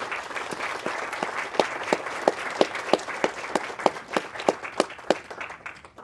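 Audience applauding, with one clapper close to the microphone standing out in a steady beat of about three claps a second; the applause dies away near the end.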